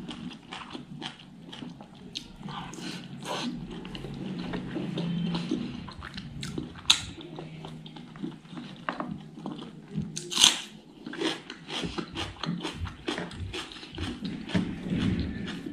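Chewing of fatty smoked pork curry and rice, with many short mouth clicks throughout and two louder sharp clicks about seven and ten and a half seconds in.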